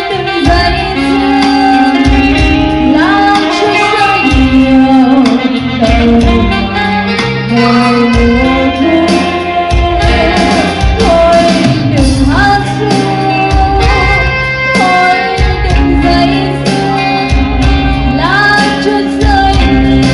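A woman singing a ballad live into a microphone, backed by a small band of electronic keyboard, electric guitar and bass guitar, heard through a PA. Several rising slides in the melody come about three seconds in, near the middle and near the end.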